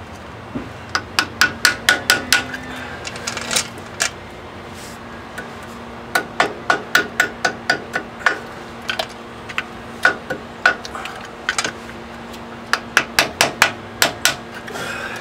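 Hammer tapping on the steel cotter pin in the ball-joint stud of a 2002 Ford F-350's front steering knuckle to drive it out: bursts of quick, ringing metallic strikes, about five a second, with pauses between. A faint steady hum runs underneath.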